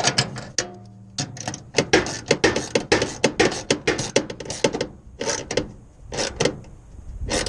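Hand ratchet and socket clicking irregularly, several clicks a second, as bolts holding a steel toolbox in a pickup bed are tightened.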